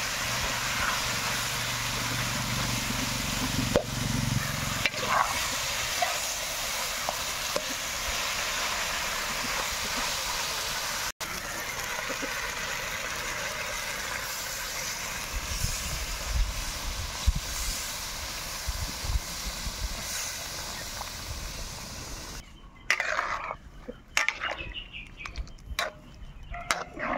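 Fried fish and vegetables sizzling in a steel wok, with a metal spatula scraping and tapping against the pan now and then. Coconut milk is poured in partway through, and about three-quarters of the way in the steady sizzle drops away, leaving scattered knocks.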